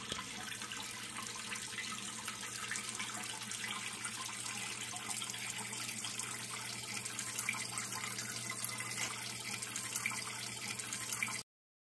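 Indoor polished-stone sculpture water fountain, water steadily trickling and splashing down inside its carved cavity, with a low steady hum underneath. It cuts off suddenly near the end.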